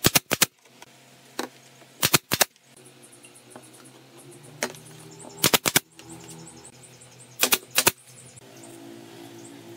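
Pneumatic brad nailer firing brads into the mitred corners of a wooden frame: four quick bursts of about three sharp shots each, spaced about two seconds apart.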